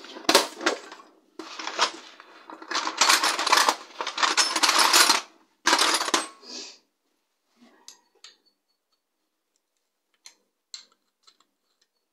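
Small metal screws and tuner parts clattering and rattling in a clear plastic box for several seconds, then a few light clicks.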